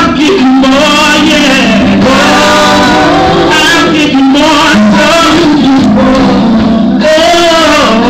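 Live gospel music in which a woman sings into a handheld microphone, her voice sliding and bending through long lines. A band plays behind her, with steady held keyboard chords.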